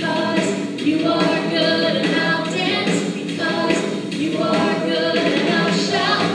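A choir of voices singing a hymn, steadily and without a break.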